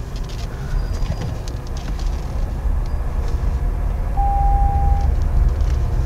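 Low tyre and road rumble of a Toyota bZ4X electric SUV pulling away, growing steadily louder, with no engine sound. A short steady tone sounds about four seconds in.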